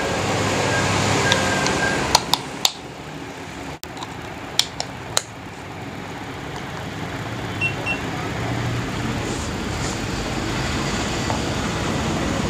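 A handful of sharp plastic clicks as a handheld Deli laser distance meter is handled, its battery fitted and buttons pressed, over a steady background hum.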